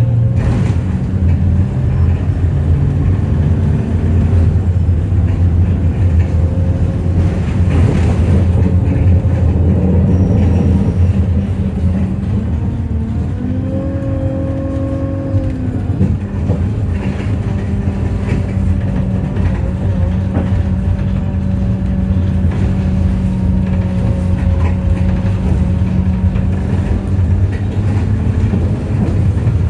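Alexander Dennis Enviro 200 bus engine running with a strong low drone and steady whining tones above it. About halfway through, a group of higher tones rises, holds for a couple of seconds and then falls away. These are the odd-sounding noises the owner calls weird engine sounds.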